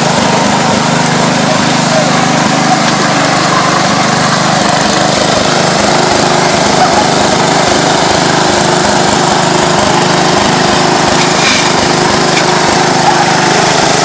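Engine of a Massey riding lawn tractor running loud and steady as it drives along with two riders aboard.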